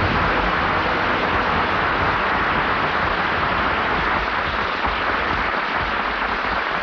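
Studio audience applauding: a steady, even clapping.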